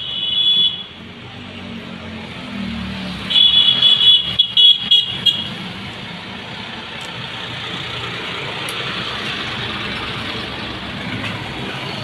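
Street traffic noise with a high-pitched horn: one short toot at the very start and a louder, stuttering one about three to five seconds in, over a steady rumble.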